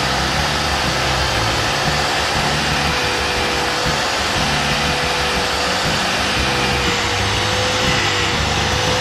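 Electric power tool running steadily with an abrasive disc working the steel blade and brass handle of an old cutter: an even motor whir with a constant hum and a hiss of grinding.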